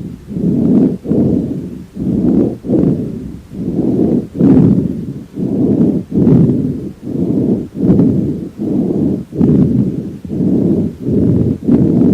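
Horse breath sounds heard through a stethoscope on the chest: even, rapid swells of breathing noise, a little more than one a second, with a few brief clicks among them.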